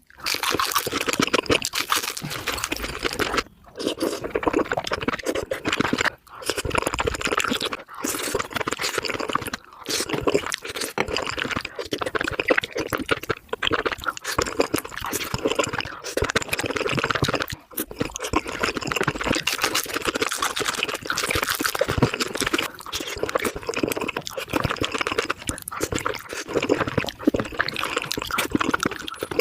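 Close-miked eating sounds sped up four times: a dense, rapid run of chewing, crunching and wet mouth sounds, with brief pauses.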